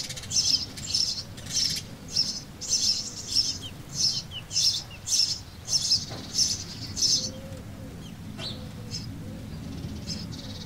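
House sparrows chirping: a steady run of short high chirps, about two a second, for the first seven seconds, then only a few scattered chirps.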